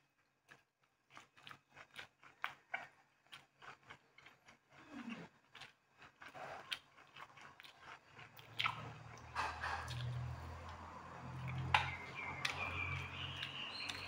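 Close-miked chewing and biting of sticky rice and grilled pork, with many small wet mouth clicks. The chewing gets louder and denser about halfway through.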